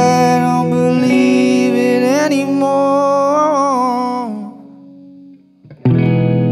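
Red semi-hollow electric guitar played through an amplifier, holding sustained chords under a wordless sung melody that bends and wavers in pitch. The music fades about four and a half seconds in, and after a short pause a loud chord is struck near the end and rings on.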